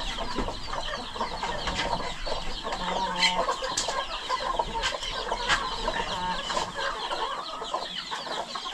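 Many newly hatched chicks peeping rapidly in short falling notes, with hens clucking lower beneath them. A few sharp clicks stand out along the way.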